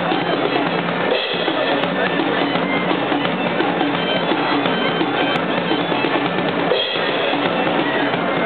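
Bagpipe and drum kit playing a tune together, the pipe's steady drone under a driving drumbeat.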